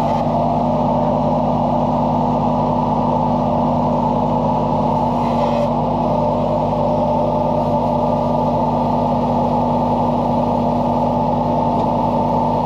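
Diesel engine of a Mahindra tractor-backhoe running at a steady speed, with no change in pitch.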